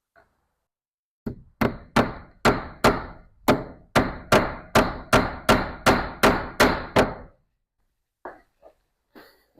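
Hammer blows: about fifteen sharp strikes at a steady pace of two to three a second, then a few lighter knocks near the end.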